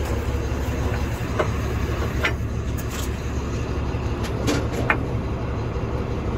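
Steady low rumble of an idling tow-truck engine, with a few short sharp knocks, likely metal struck on the fifth-wheel hitch, about 1.5, 2.3, 3 and 5 seconds in.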